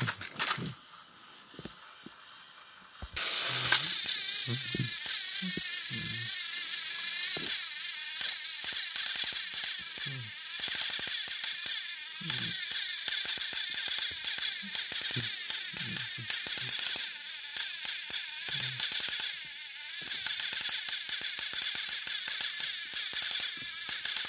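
Battery-powered Thomas & Friends toy trains straining against each other on plastic track: their small gear motors whir with a rapid rattling clatter. The sound comes in about three seconds in and stays steady.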